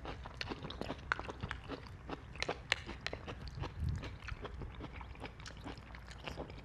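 A person chewing a mouthful of pasta, with small irregular clicks of a spoon in a plastic food container.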